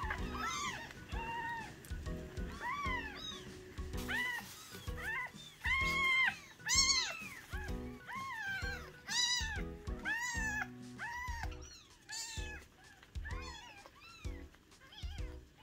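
Baby kittens mewing over and over, short thin arched cries one after another, loudest around six to seven seconds in, over background music.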